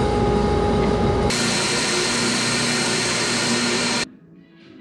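Bandsaw running steadily: a loud, even machine noise with a faint steady tone. Its character changes abruptly about a second in, and it cuts off sharply near the end.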